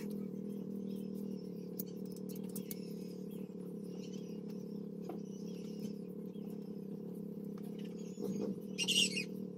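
Small birds chirping, with one louder squawk about nine seconds in, over a steady low hum.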